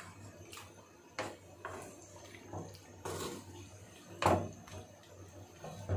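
Wooden spatula stirring a wet mix of chicken, yogurt and tomatoes in an aluminium pot, scraping and knocking against the metal about once a second, the loudest knock about four seconds in.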